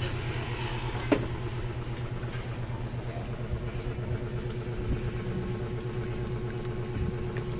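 A motor vehicle engine idling steadily with a low, rapid pulse, and a single sharp knock about a second in.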